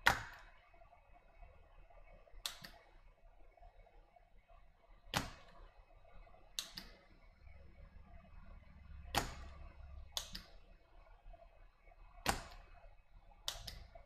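A series of sharp, short clicks or taps, about eight, coming irregularly one to three seconds apart, over a faint steady hum.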